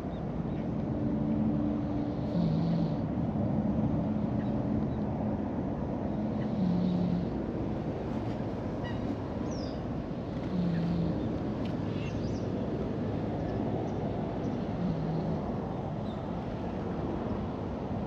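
Orange-and-white cat snoring loudly in its sleep: a short, low snore about every four seconds over a steady low background rumble.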